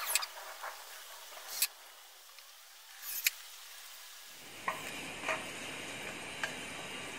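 A few short, sharp clicks and taps, with handling of wood and metal folding-table brackets. About halfway through, a faint steady background hiss sets in, with three more light clicks over it.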